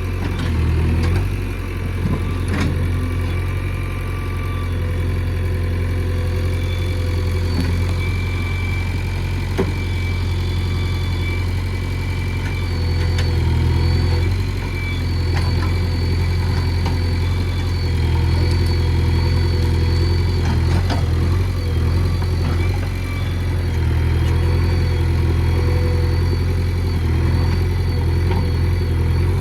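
JCB 3DX backhoe loader's diesel engine running steadily, with a few short knocks.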